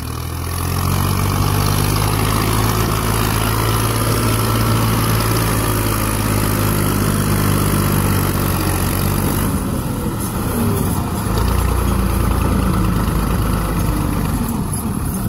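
Massey Ferguson 240 tractor's three-cylinder diesel engine running steadily under load as it pulls a heavily loaded sugarcane trolley over a rough dirt road. The engine note changes about two-thirds of the way through.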